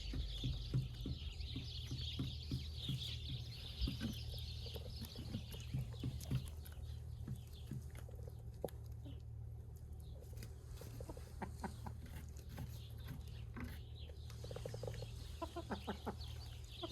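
Chickens clucking, with many short clicks and taps among them, and a burst of quick clucks near the end. A high-pitched hiss sounds over the first half and fades by about six seconds in.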